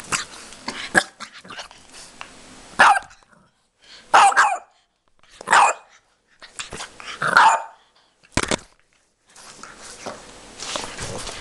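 Bulldog puppy barking: about five short, sharp barks spaced a second or so apart, after a few seconds of faint rustling and clicks.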